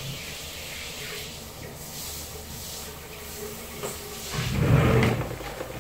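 Water running and splashing during a cat's bath, a steady rush that swells louder for about a second past the middle.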